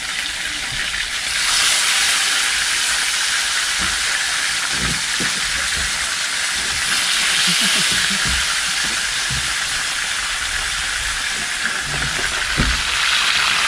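Fish frying in a pan of hot oil: a loud, steady sizzle that grows louder about a second and a half in.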